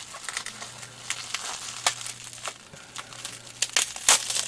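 Bubble wrap crinkling as it is handled and pulled open, with irregular sharp crackles, the loudest about two seconds in and near the end.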